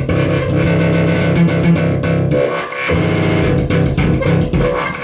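Music: guitar and bass playing, with the low notes dropping out briefly about two and a half seconds in.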